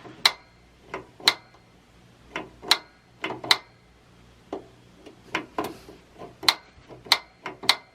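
Mr. Heater Buddy propane heater's piezo igniter snapping about a dozen times at uneven intervals as the pilot is lit for the first time; the pilot has not yet caught.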